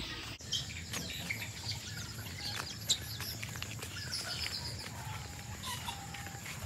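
Birds in a chicken yard giving faint, scattered short chirps and peeps, with an occasional lower call, over a low steady background rumble.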